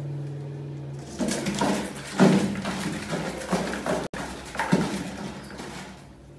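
A rat dropping through the tipping cardboard lid into a plastic bucket trap, then scrabbling and knocking against the bucket's sides. The noise sets in about a second in, is loudest a second later, and dies away near the end.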